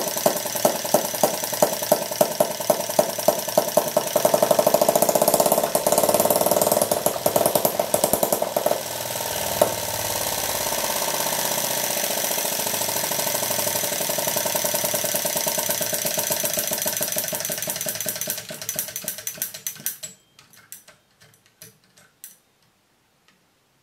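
Maier 1.5 cc two-stroke butane model engine running with distinct regular beats. About four seconds in it speeds up, and it then runs fast and even. Near the end it slows, cuts out and coasts to a stop with a few slowing clicks.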